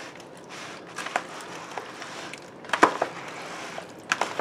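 A metal serving spoon folding arugula and chunks of potato salad in a plastic bowl: soft squishing and leaf rustle, with a few light clicks of the spoon against the bowl.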